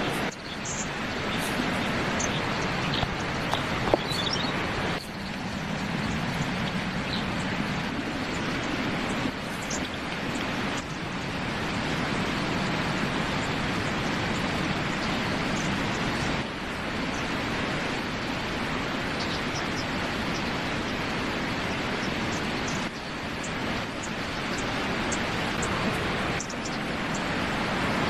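Steady rushing outdoor noise, broken off and resumed abruptly several times.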